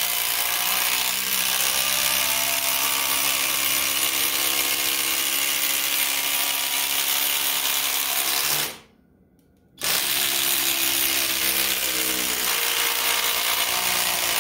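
A 24-volt cordless impact driver hammering in a screw, a steady rapid impacting rattle. It stops for about a second partway through, then starts again.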